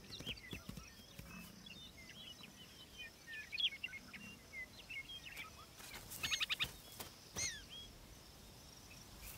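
Outdoor ambience of several birds chirping and calling, with a fast trill about six seconds in and a downward-slurred call shortly after, over a faint background hiss.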